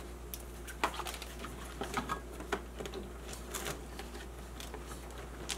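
Scattered small clicks and rustles of electrical cords and plugs being handled and sorted by hand, over a steady low hum.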